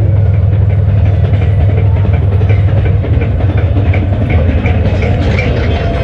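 Train running on the track: a steady heavy rumble with a quick, regular clickety-clack of wheels over the rails.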